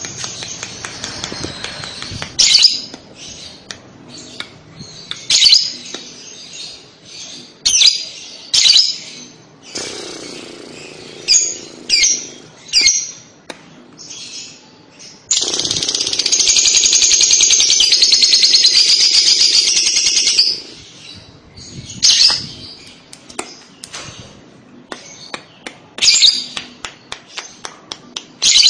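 Fischer's lovebird calling: sharp single chirps scattered throughout, and about fifteen seconds in a long, rapid chattering trill of about five seconds, the lovebird's 'kekek' (ngekek) call.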